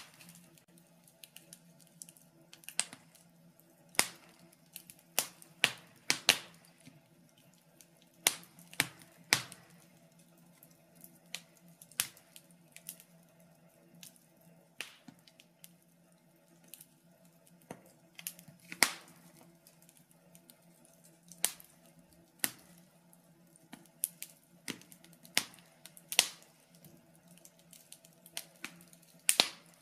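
Wood fire in a fireplace crackling, with irregular sharp pops and snaps, some much louder than others, over a faint steady hum.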